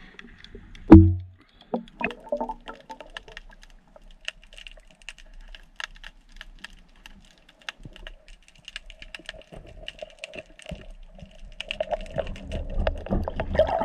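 Underwater crackle of snapping shrimp: a dense scatter of sharp, irregular clicks. A single heavy thump comes about a second in, and a swelling rush of water and movement builds near the end.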